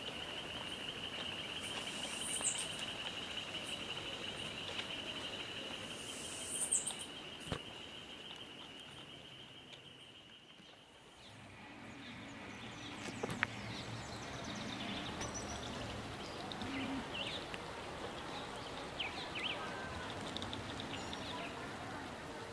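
An insect trills steadily in a high, fast-pulsing buzz for about the first ten seconds, then stops; after that, scattered short bird chirps are heard over a soft outdoor background hiss.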